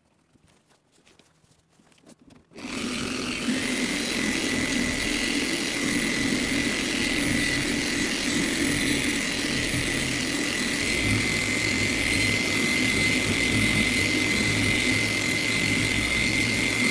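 Electric machine polisher switched on about two and a half seconds in and running steadily with a constant whine, working one-step polish into sanded car paint on a first polishing pass. Before it starts there are only a few faint handling clicks.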